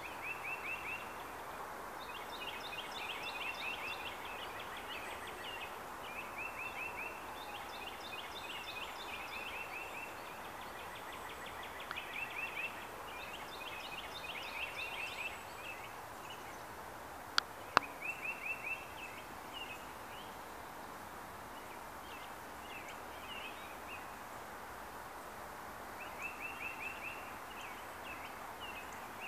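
Songbirds singing: one repeats a short trilled phrase every few seconds while another sings a longer, more varied song in three spells, over a steady background hiss. Two sharp clicks a little past halfway.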